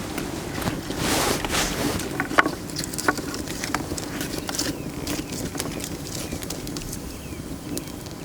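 Open cooking fire crackling, with irregular sharp pops and clicks over a steady rushing noise.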